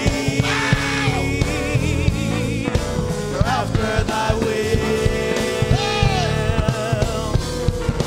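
Gospel worship music: a band playing with a steady beat under a wavering melody line, with singing.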